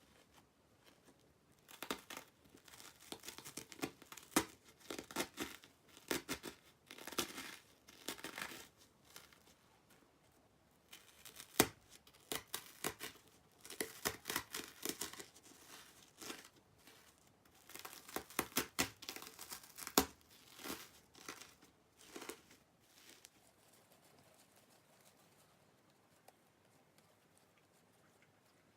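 Hands squeezing and pressing slime mixed with Banana Kick corn-puff snack pieces, giving clustered bursts of crackling, crunching pops as the snack bits break. The bursts stop several seconds before the end.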